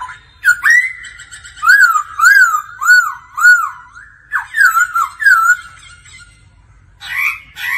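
Black-throated laughingthrush singing: a run of loud, clear whistled notes, each rising and falling, repeated about twice a second in two phrases, followed near the end by a short, rougher call.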